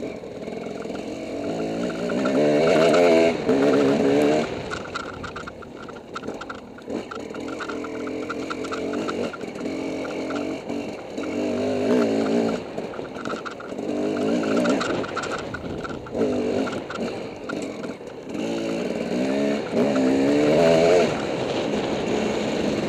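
Dirt bike engine running under way on a trail, its pitch climbing and falling repeatedly as the throttle is opened and closed, with the strongest revving a few seconds in and again near the end.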